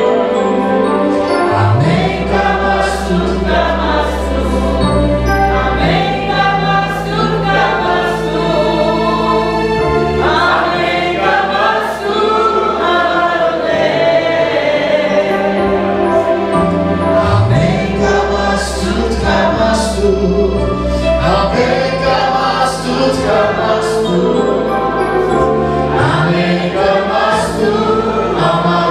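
Church worship song: a group of voices singing over held low chords that change every few seconds.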